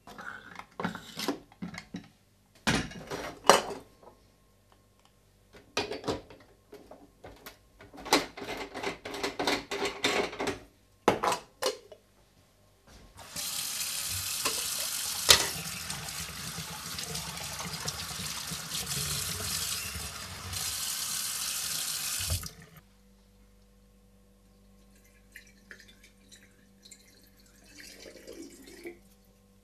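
Kitchen tap running steadily into a sink for about nine seconds, starting about 13 seconds in and shutting off abruptly. Before it come scattered knocks and rustles of a sponge wiping the countertop and things being handled. Near the end, water poured faintly from a glass carafe into a coffee maker.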